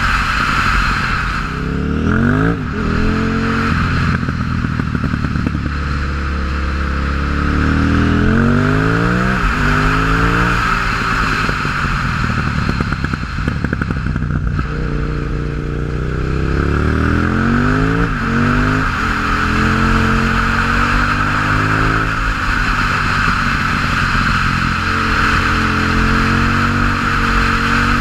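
2006 KTM 950 Supermoto's V-twin through an open MIVV exhaust with its dB-killers removed, ridden hard: it accelerates through the gears several times, the revs climbing and dropping at each upshift, with steady cruising between. A constant hiss runs underneath.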